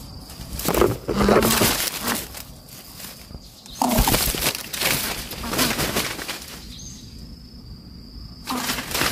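Dry leaves and fronds rustling and crackling in loud bursts: one about a second in, a longer one around four seconds in, and another near the end.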